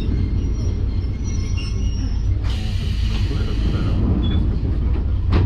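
Kominato Railway diesel railcar running along the line, a steady low rumble of engine and wheels. A higher hissing squeal cuts in sharply about two and a half seconds in and lasts about a second and a half, and a knock comes near the end.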